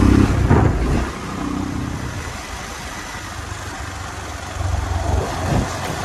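Motorcycle engine running under way, with wind and road rush on the microphone. The engine note falls away about a second in as the throttle is closed into the bend, then picks up again near the end.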